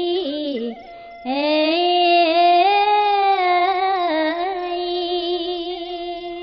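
A woman's voice chanting Khmer smot, Buddhist chanted verse, in long held melismatic notes with a wavering vibrato. The line breaks off for a short breath about a second in, then resumes and is held, fading near the end.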